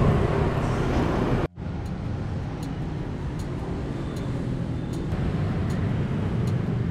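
Outdoor city street ambience: a steady rumble of passing traffic, broken by a brief dropout about one and a half seconds in.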